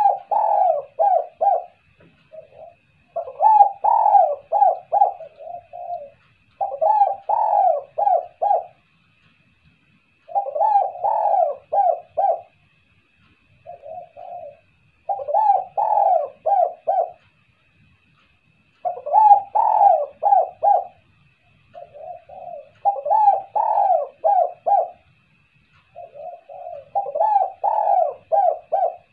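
Spotted dove (tekukur) cooing its song over and over: phrases of several quick coos, each about two seconds long, coming about every three to four seconds.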